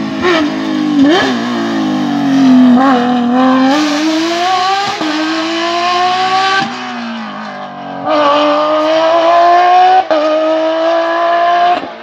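Rally cars at full throttle on a closed special stage: a loud engine note climbing in pitch through the gears, with sharp cracks at the first few shifts. The note falls away about two-thirds through as the throttle is lifted, then a second hard acceleration follows.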